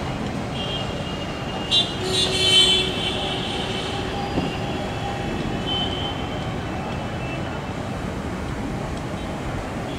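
Distant Boeing 777 jet engines at taxi power: a steady rushing noise with a thin high whine. A brief, louder sound with several tones comes about two seconds in.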